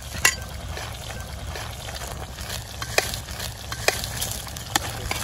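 Chicken with spice masala frying in a pan, sizzling steadily while being stirred, a ladle clicking against the pan about five times, over a low steady rumble.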